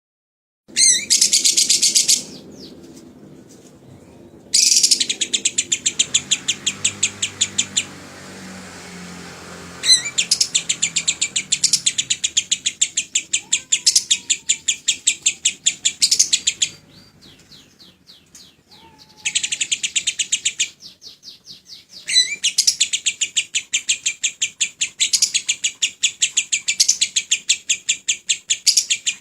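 Lovebird singing in the 'kapas tembak' style: long runs of very rapid, machine-gun-like chattering trills (ngekek), each run lasting several seconds, with short pauses between runs.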